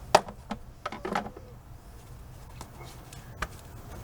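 A few sharp clicks and knocks of hand tools and intake parts being handled and set down during work on an engine bay. The loudest comes just after the start, a quick cluster follows around one second in, and fainter ticks come near the end.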